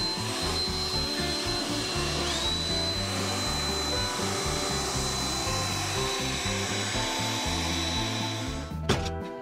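Cordless Husqvarna leaf blower running at full blast, a steady rush of air with a high-pitched whine that steps slightly up in pitch a little over two seconds in. It stops near the end.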